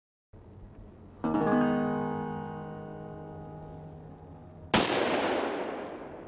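A single strummed acoustic guitar chord about a second in, ringing out slowly; then a single loud gunshot near the end, its echo dying away through the forest.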